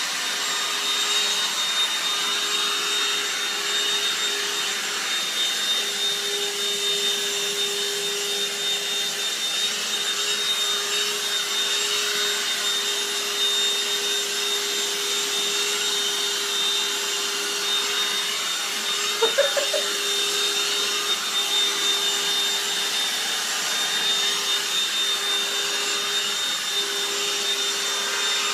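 Handheld cordless DustBuster vacuum running steadily with a constant motor whine and hiss as its nozzle is worked over a cat's fur. A short pitched sound breaks in briefly about two-thirds of the way through.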